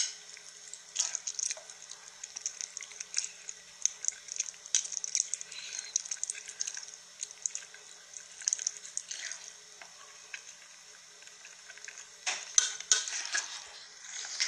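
A person slurping and chewing saucy instant noodles close to the microphone: a steady run of short, wet, crackly mouth noises, with a louder cluster near the end.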